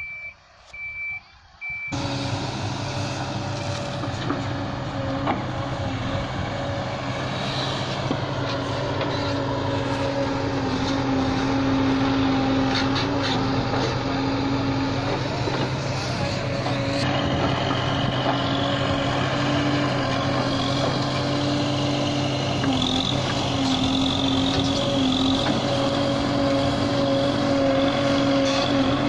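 Backhoe loader's reversing alarm beeping for the first couple of seconds, then its diesel engine running loud and steady under load as the loader bucket pushes soil, the engine note shifting slightly as it works.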